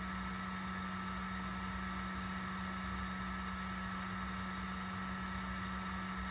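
MakerBot Sketch 3D printer running steadily while its extruder heats up to release the filament: an even, low hum with a faint high whine over a fan-like hiss.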